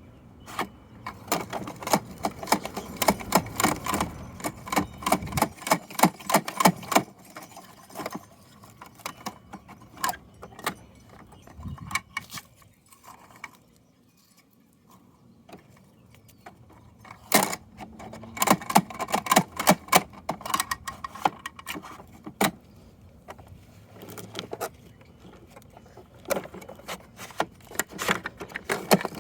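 A plastic toy garbage truck and its small parts being handled, clattering and rattling in quick runs of clicks, with a quieter stretch about halfway through.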